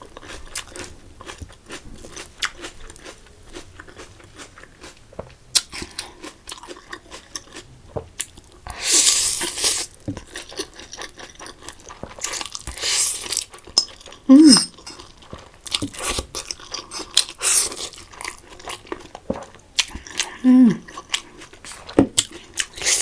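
Close-up eating sounds: crunchy chewing and biting with many short wet mouth clicks, a few longer noisy bursts of crunching, and a couple of brief closed-mouth hums.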